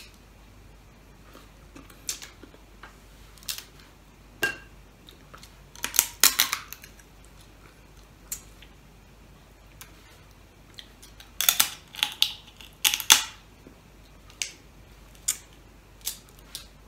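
Boiled crab shells cracking and snapping as they are broken apart by hand, in scattered sharp clicks with two quick runs of cracks, about six seconds in and again around twelve to thirteen seconds.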